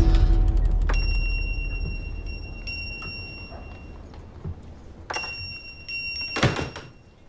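Small shop-door bell on a curved spring bracket ringing twice: once about a second in and again about five seconds in, each time a clear high ring that dies away over a few seconds. A thud comes near the end.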